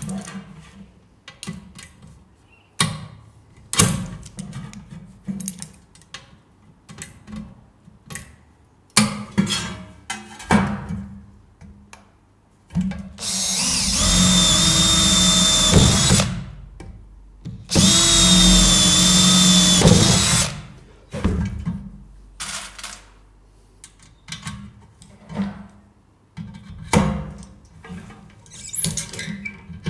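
Makita cordless drill drilling rivet holes through galvanised sheet metal in two runs of a few seconds each around the middle. Scattered clicks and knocks of tools and sheet metal being handled come before and after, with a hand pop-rivet gun being squeezed near the end.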